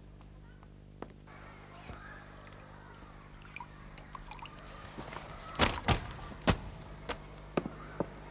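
A wooden stick stirring thick whitewash in plastic buckets, with wet sloshing and the knocks and clatter of buckets and tools being handled. Three loud knocks come in quick succession about five and a half seconds in, followed by a few lighter clicks.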